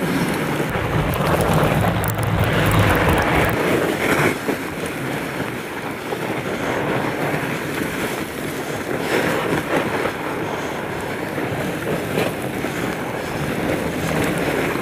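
Fat bike being ridden along a trail: steady rushing wind on the microphone mixed with tyre and frame rattle, with a few sharp knocks along the way.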